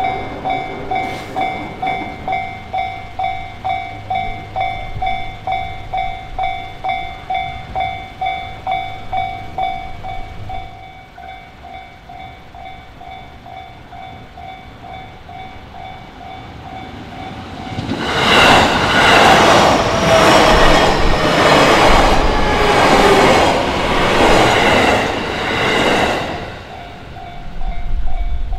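Japanese level-crossing warning bell ringing in a steady kan-kan about twice a second, dropping much quieter about ten seconds in. An electric commuter train then passes over the crossing for about eight seconds, its wheels clattering rhythmically over the rail joints, and the bell is heard clearly again near the end.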